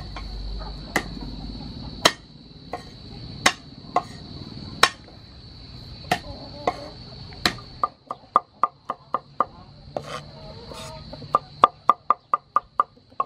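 Cleaver knocking on a wooden cutting board while cutting garlic: single knocks roughly every second and a half at first, then, from about eight seconds in, quick runs of chopping at about six strokes a second.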